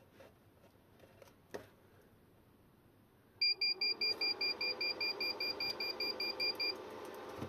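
A battery cell voltage tester beeping an alarm: short, even, high beeps about six a second for about three seconds, starting a few seconds in, with a steady low hum underneath. It sounds as its balance-lead connector is fitted to the cells the other way up. Faint handling clicks come before it.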